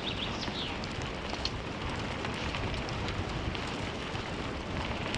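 Wheels of a one-dog scooter rolling fast over a dirt forest trail: a steady rolling rumble with wind on the microphone and scattered small ticks of grit.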